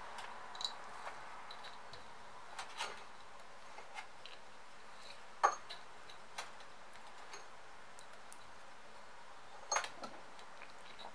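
Thin stainless steel wire being wound tightly around a wooden hammer handle, giving a few scattered small clicks and ticks as the wire is pulled and the coils are pushed together. The sharpest click comes about halfway through, with a quick pair near the end.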